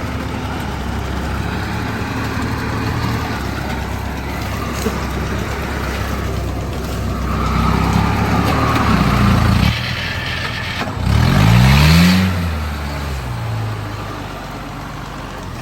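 Kubota DC93 combine harvester's diesel engine running steadily, then dipping and rising in pitch twice in the second half as it revs, loudest about twelve seconds in.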